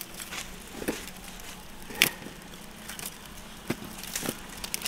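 Wood fire crackling, giving a handful of irregular sharp snaps and knocks, the loudest about two seconds in.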